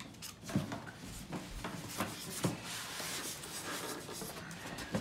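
Polystyrene foam packaging rubbing and scraping against a cardboard box as the packed espresso machine is lifted out, with a few soft knocks.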